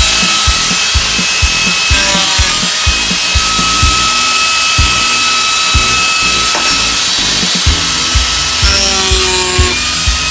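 Spring-loaded reciprocating power carving tool running and cutting wood: a steady high whine with irregular knocks as the blade bites, its pitch dropping briefly about two seconds in and again near the end.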